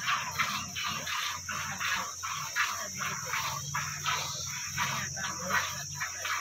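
Milk squirting from a cow's teats into a steel bucket during hand milking, in a steady rhythm of about three squirts a second.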